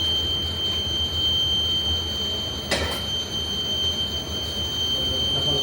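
Steady low machine hum with a constant high-pitched whine over it, and one brief noisy scrape or rustle nearly three seconds in.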